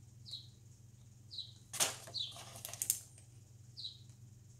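A small bird chirps in the background, four short high chirps that each slide downward. Around the middle, a plastic-sleeved sticker sheet being handled crackles twice sharply, the first crackle the loudest sound.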